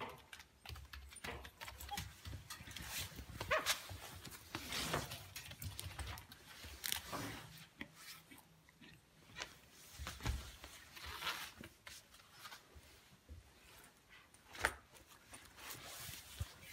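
A small long-haired dachshund moving about and nosing into a nylon pet carrier bag: scattered rustles and light scuffs, with a sharper knock near the end.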